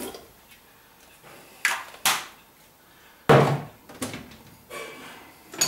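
Pots and pans being clattered about: about six sharp knocks and bangs spread over the few seconds, the loudest a little past three seconds in, some ringing briefly.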